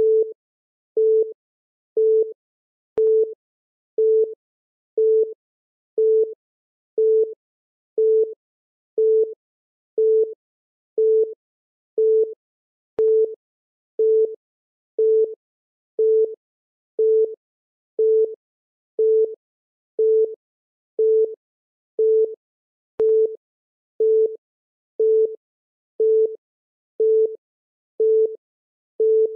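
Countdown timer beep: a short, mid-pitched electronic beep repeating steadily once a second, marking each second as the clock counts down.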